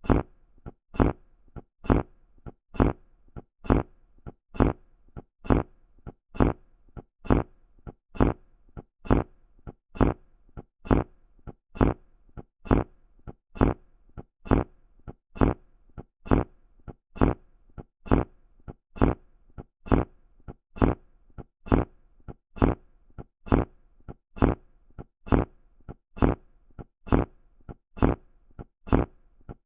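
Human fart sound effect: a short, low, buzzy fart repeated about once a second.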